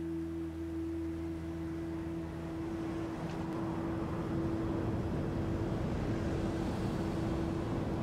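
A steady hum with one held tone, under a wash of noise that grows louder from about three seconds in.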